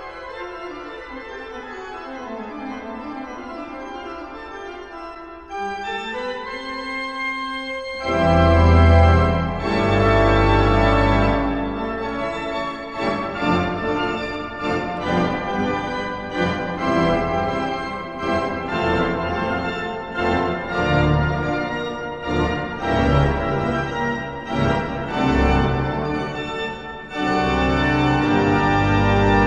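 Instrumental music, soft at first, becoming fuller with a deep pulsing beat about eight seconds in.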